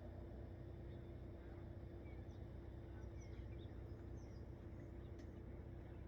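Faint outdoor ambience: a steady low rumble with a steady hum, and small birds chirping briefly here and there.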